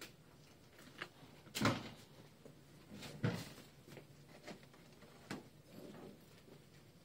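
Handling sounds of a wound dressing being changed: soft rustles with a few short knocks, two louder ones about one and a half and three seconds in, as gauze is worked off a leg wound with metal forceps.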